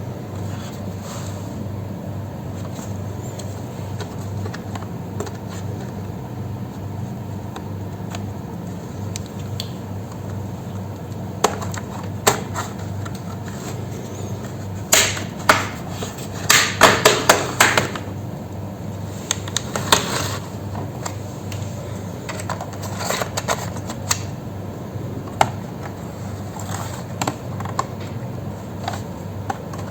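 Scattered sharp plastic clicks and clacks from hands and tools working on a laptop's case and parts, thickest in a quick run about two thirds of the way through. A steady low hum sits underneath.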